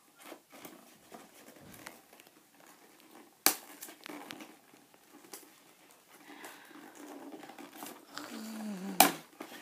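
Cardboard box packaging being handled as a foam model plane is worked free of its insert: scattered rustling and scraping of cardboard, with two sharp knocks, one about three and a half seconds in and a louder one near the end.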